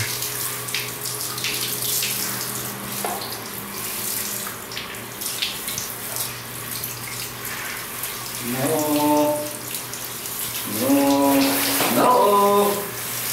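Water spraying from a hand shower head held against a wet Siberian Husky's fur, running steadily and splashing down onto the tiled floor. Past the middle, two short held pitched sounds rise over the water, louder than the spray.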